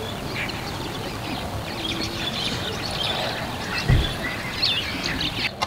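Many small birds chirping and calling over a steady background hiss, with a single short low thump about four seconds in. The background drops away abruptly near the end.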